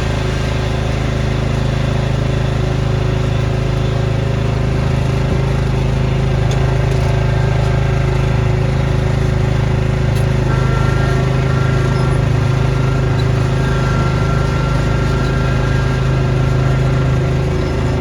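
Small engine of a snowblowing machine running steadily at a constant speed. A faint high whine joins about halfway through.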